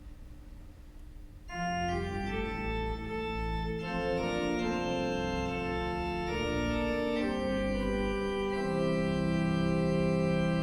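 Organ playing the introduction to a sung responsorial psalm: a slow run of sustained chords that starts about a second and a half in.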